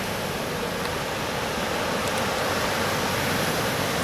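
Pacific Ocean surf washing ashore: a steady rushing wash that swells a little partway through and eases near the end.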